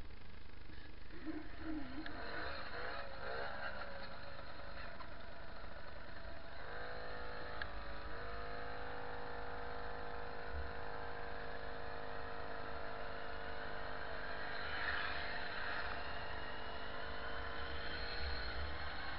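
Babetta 207 moped's small two-stroke engine running under way on a gravel track, with wind buffeting the helmet-camera microphone. The engine note rises about seven seconds in and then holds steady.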